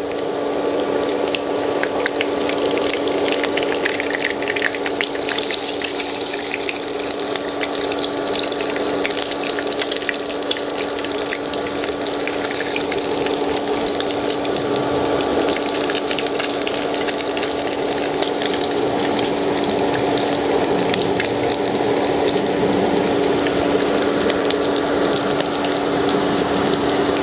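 Potato and minced-pork patties frying in hot oil in a pan: a steady, dense sizzle with fine crackling from the bubbling oil, over a steady low hum.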